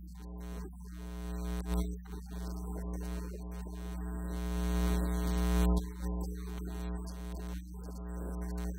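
Sustained low electronic keyboard pad, a steady droning chord with a hum-like buzz that swells until about two-thirds of the way through, then drops back.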